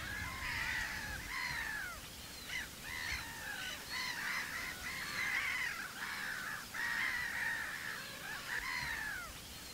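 A flock of black-headed gulls calling: many overlapping calls that rise and fall in pitch, in a continuous chorus.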